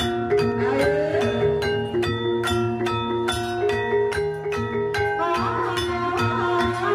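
Jaranan gamelan music: rapid runs of struck, ringing metallophone and gong-chime notes over low drum beats. A wavering melody line comes in about five seconds in.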